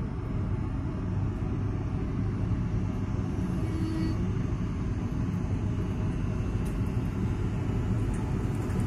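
EP20 electric locomotive moving slowly up to the passenger cars to couple on: a steady low rumble and hum, with a brief higher tone a little before four seconds in.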